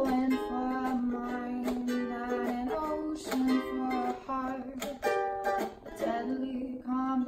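Ukulele strumming chords in a steady rhythm, an instrumental passage with no singing, in a small room.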